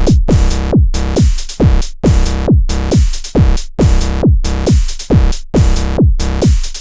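Techno music: a drum-machine kick drum with a falling pitch hits about twice a second over a sustained synth chord.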